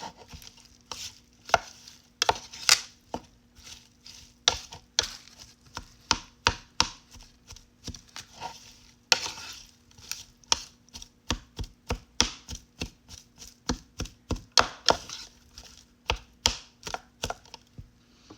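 Powdered slime mix and water being stirred in a small kit skillet: irregular clicks and taps of the stirrer against the pan, one to three a second, over a faint steady hum.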